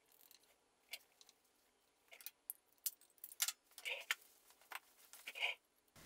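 Faint, scattered small metallic clicks and clinks of a spring retaining clip being worked onto a Brembo monoblock brake caliper by hand.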